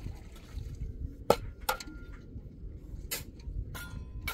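About five sharp knocks and clinks at irregular intervals, the loudest a little over a second in, a couple of them leaving a short ringing tone, over a steady low rumble.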